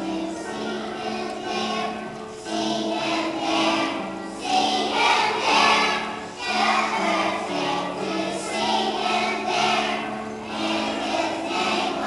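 A group of young children singing a song together as a choir, with instrumental music accompanying them.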